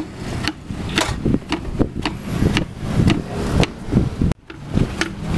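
A long wooden pestle pounding rujak bebeg in a wooden mortar, with repeated knocks at about two a second. The pounding breaks off briefly about four seconds in, then resumes.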